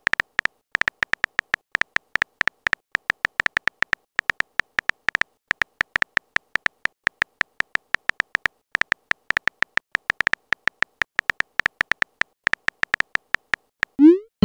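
Phone keyboard typing sound effect: a quick run of short, high ticks, one per letter typed, at an uneven typing pace. Near the end a short rising swoosh marks the message being sent.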